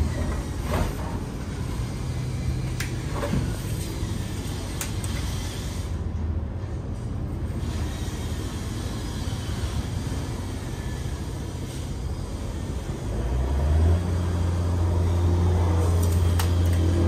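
A steady low mechanical hum, like a nearby engine or machine, that grows louder about fourteen seconds in. Scattered sharp clicks and knocks come from handling the template and tape measure on the metal roof.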